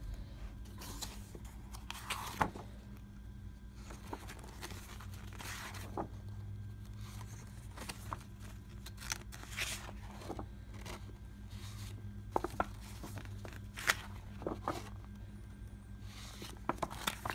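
Pages of a paper rule book being turned and handled: scattered light rustles and soft taps over a steady low hum.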